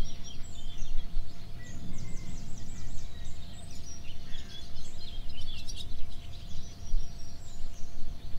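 Small birds chirping and twittering in quick runs of short high notes, over a steady low rumble.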